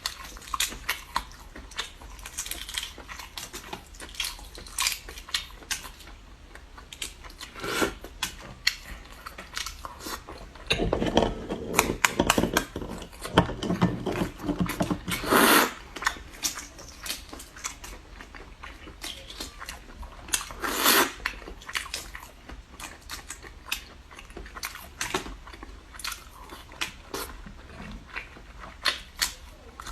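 A person chewing and biting while eating balut (fertilized duck eggs), with many short mouth clicks. There are a few longer, noisier stretches around the middle and again about two-thirds of the way in.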